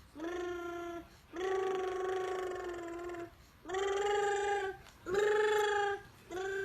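A young girl's voice making a run of long, held sung notes at a steady, fairly high pitch, five in a row with short breaks between them.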